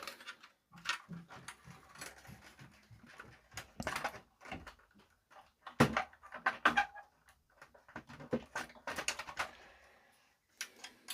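Irregular clicks, knocks and scrapes of small parts and tools being handled as an amplifier's parts are refitted, with the loudest knocks about six seconds in.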